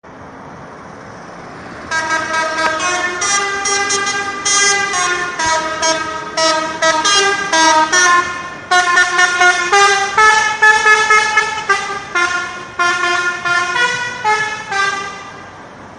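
Telolet horn, a multi-tone musical horn, playing a tune of short notes that change pitch every fraction of a second, starting about two seconds in and stopping about a second before the end, over a faint steady background hum.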